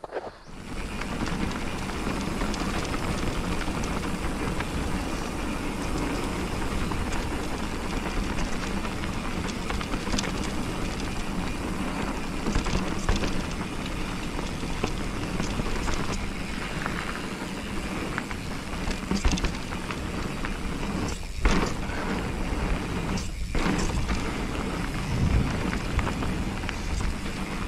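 Mountain bike ridden fast down a dirt singletrack, heard from a handlebar-mounted camera: a continuous rush of wind buffeting the microphone over the tyres on dirt, with scattered sharp rattles and knocks from the bike over bumps. The noise briefly drops twice near the end.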